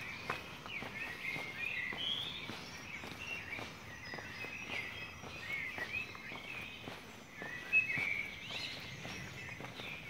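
Small songbirds chirping and singing in quick, repeated short notes, with one louder chirp about three-quarters of the way through. Faint footsteps on the pavement run underneath.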